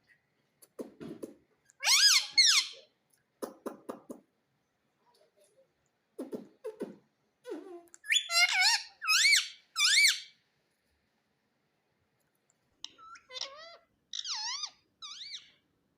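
Pet parrot squawking in short, shrill calls that bend up and down in pitch, loudest about two seconds in and again around eight to ten seconds, with a quieter run near the end and softer low notes in between.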